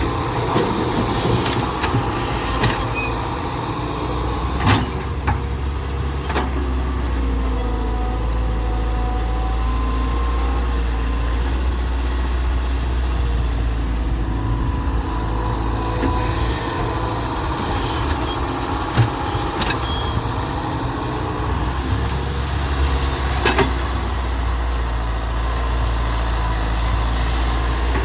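Hyundai excavator's diesel engine and hydraulics running steadily under work, with a few sharp knocks now and then.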